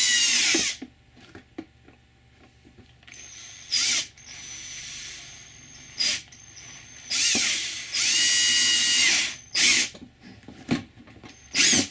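Cordless drill run in several short bursts, its motor whine rising and falling, as it slowly bores holes through the soft plastic wall of a storage box. It is run slowly and in short bursts so the bit does not tear the box wall.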